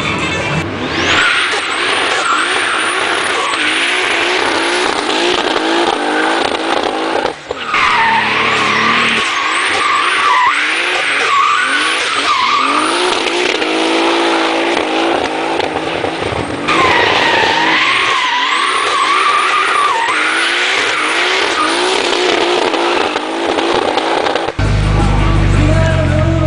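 A drift car's engine revving up and down hard as it slides sideways, with tyres squealing on the wet tarmac. The sound changes abruptly a few times where the footage cuts.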